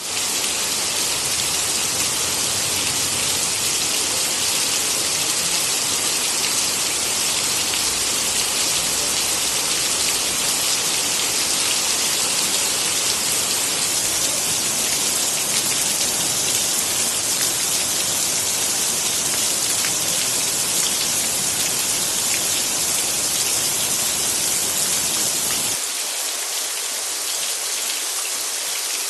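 Steady rain falling, a dense even hiss with no other sounds standing out. Near the end the deeper part of the sound drops away suddenly, leaving a thinner hiss.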